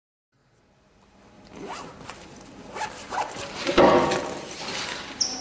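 A backpack being handled close by: its zipper drawn in several quick rasping strokes amid rustling fabric. The sound begins about a second in after silence and is loudest near four seconds in.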